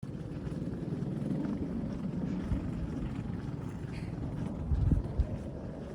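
Strong wind buffeting the microphone: a steady low rumble, with a harder gust near the end.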